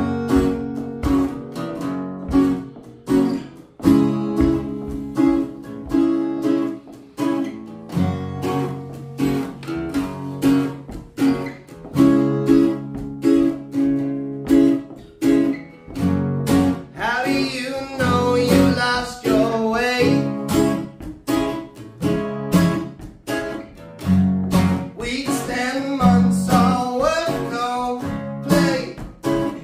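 Two acoustic guitars strummed together in a steady rhythm, with a man starting to sing over them a little past halfway.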